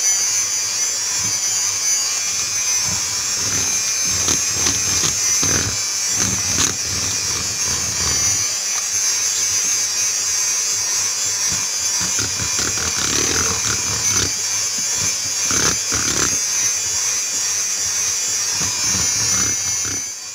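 Electric hand mixer running steadily, its wire beaters creaming a thick butter-and-sugar batter, with scattered clicks of the beaters against the bowl.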